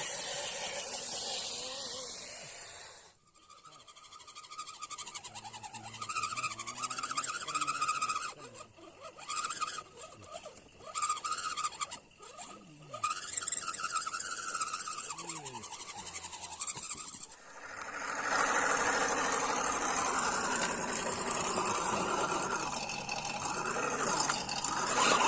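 Small electric motor and gears of a 1:10 scale RC crawler whining as it drives, the pitch rising and falling with the throttle. The sound breaks off abruptly twice and is followed by a denser, noisier stretch.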